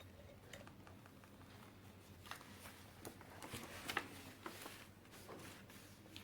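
Faint scratches and a scatter of light taps of a paintbrush working on paper, against quiet room tone.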